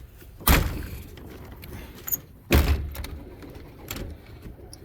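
Two loud bangs about two seconds apart, a pigeon loft door being opened and pulled shut, with pigeons cooing in the background.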